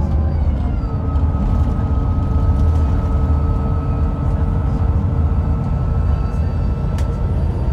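Scania K440EB coach under way: a steady low engine rumble with thin whining tones above it, which shift in pitch about a second in.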